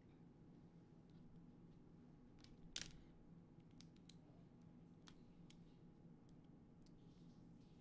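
Near silence over a low steady room hum, with scattered faint clicks and ticks of small tools and parts being handled at a workbench, one louder click about three seconds in.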